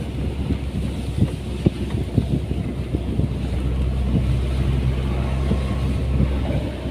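An engine running steadily with a low hum, with scattered knocks and rattles throughout.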